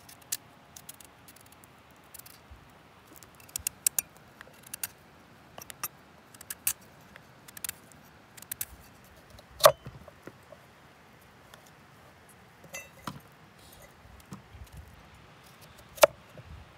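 Knife peeling and cutting raw pumpkin: scattered small clicks and scrapes of the blade through the hard rind and flesh, with two louder sharp clicks, one about ten seconds in and one near the end.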